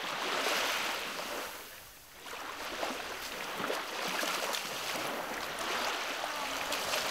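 Small waves lapping and washing onto a sandy shore in gentle swells, with a short lull about two seconds in.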